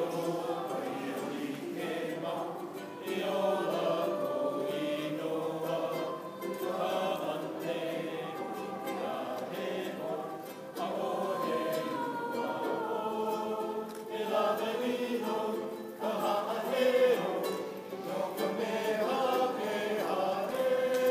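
Mixed choir of men's and women's voices singing a song together, accompanied by a ukulele.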